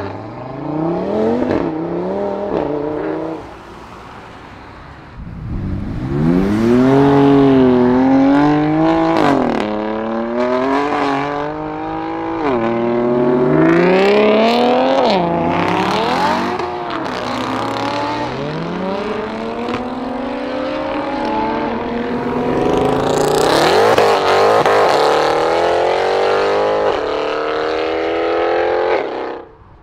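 Single-turbo BMW 335i's N54 straight-six accelerating hard through the gears of its dual-clutch gearbox, out of a 3.5-inch single exhaust: the engine note climbs steeply and drops back at each quick upshift, again and again. A shorter pull comes near the start, then a lull of about a second before the long run of accelerations.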